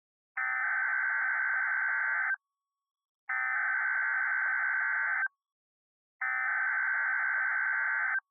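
Emergency Alert System SAME header: three bursts of buzzing digital data tones, each about two seconds long and about a second apart, announcing the start of a new alert.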